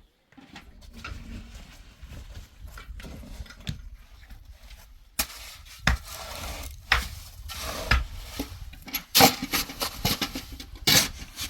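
Irregular knocks, clinks and scraping of hard objects being handled, sparse at first and busier and louder from about five seconds in.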